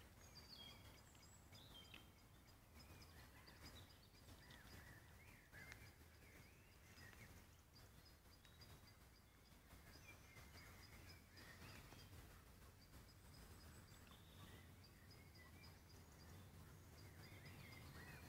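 Near silence: faint outdoor night ambience with a low rumble, faint short chirping calls scattered throughout and a faint steady high ticking.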